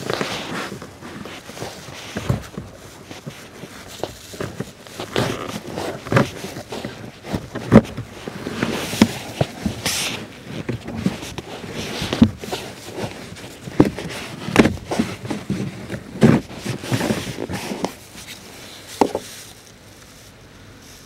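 A pleated paper cabin air filter being worked out of its plastic housing: irregular knocks and clicks of plastic, with bouts of rustling as the filter slides and scrapes against the housing.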